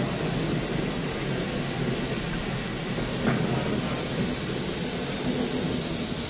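Standing Great Western steam tank locomotive No. 4277 hissing steadily while waiting to depart, with a low rumble beneath the hiss and a single brief click about three seconds in.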